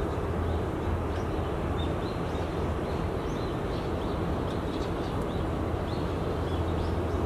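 Steady low rumble of outdoor city noise, with many short high chirps of small birds scattered throughout.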